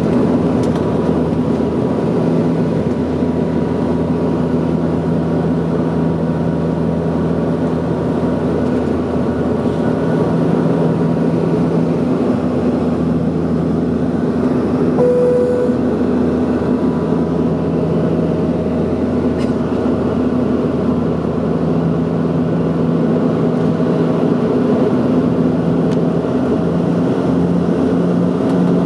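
Steady drone of a Saab 340's twin turboprop engines and propellers heard inside the cabin, with a constant low hum and a thin high whine. A brief beep-like tone sounds about halfway through.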